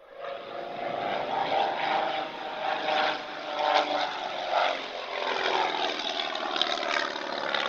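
Propeller-driven aircraft engine running in a steady drone, its pitch wavering slightly.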